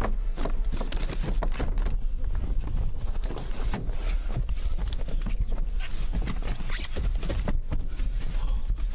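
Hurried, irregular footsteps and rustling of gear and clothing as people rush to leave, with a constant deep rumble of handling or wind on the microphone.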